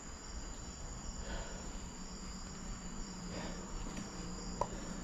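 Night insects, crickets, chirping steadily in a high continuous trill, over a faint low hum, with one small click near the end.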